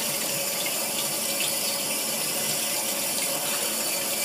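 Emergency eyewash station running: water streaming steadily from the nozzles over a person's face and splashing into the basin.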